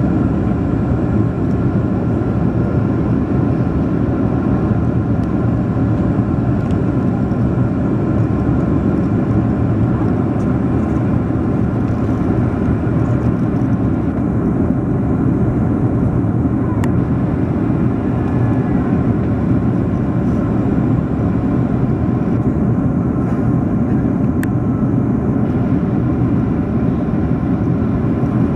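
Steady cabin roar of a Boeing 737-400 in flight on approach, heard from inside the passenger cabin: the rush of air and its CFM56 turbofan engines, with faint steady engine tones running through it.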